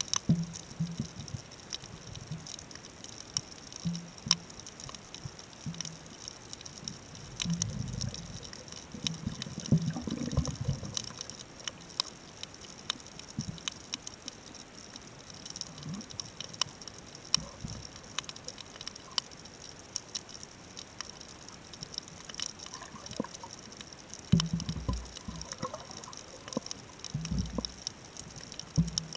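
Underwater ambience on a coral reef at night, heard through a camera set on the sea floor: scattered sharp clicks and crackles over a steady hiss, with a few low thumps about eight and ten seconds in and again near the end.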